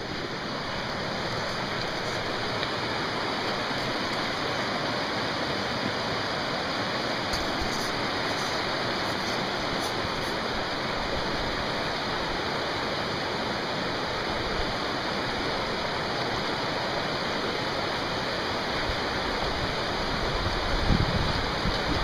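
Fast-flowing river water rushing over rocks in a steady, unbroken hiss, with a few low thumps near the end.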